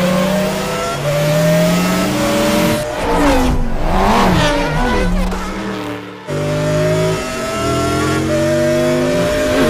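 Several race car engines running at high revs. Their pitch climbs steadily, then swings up and down as cars pass, and the sound changes abruptly about six seconds in.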